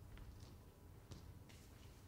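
Near silence: room tone with a few faint, sharp clicks.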